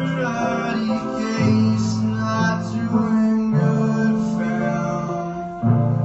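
Live band music: guitar and a low bass line under a singing voice, with a strong new chord hit near the end.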